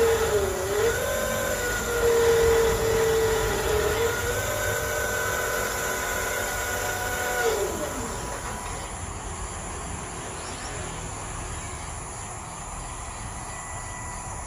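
A homemade RC crane's electric drive motor whining under load as it lifts a heavy load, its pitch wavering, then winding down and stopping about eight seconds in. Faint insects chirp in the background afterwards.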